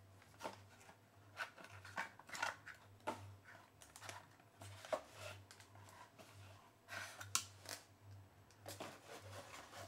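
Faint handling sounds of a cardboard box and a plastic antenna unit being lifted and shifted: scattered soft clicks, rustles and scrapes, over a low steady hum.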